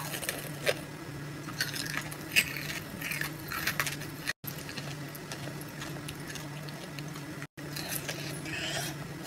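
Close-miked biting and chewing of amber sugar (kohakutou) candy, its crisp sugar crust crackling in small clusters of soft crunches between the teeth, over a low steady hum.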